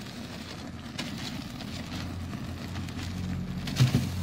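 A low engine hum, swelling louder about three seconds in, with a brief loud bump near the end.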